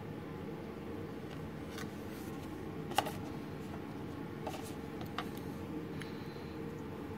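Light handling sounds: a few short clicks and taps as a card is set down and a metal pen is picked up and handled on a stone countertop, the sharpest click about three seconds in, over a steady low background hum.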